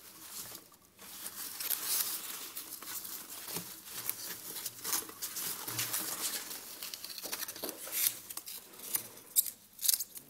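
A ferret scrambling and burrowing through polystyrene packing peanuts in a cardboard box: a dense run of rustling and crackling, with a few sharper knocks near the end.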